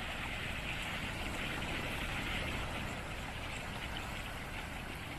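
Snowmelt stream running and splashing down bare rock slabs: a steady, soft rush of water.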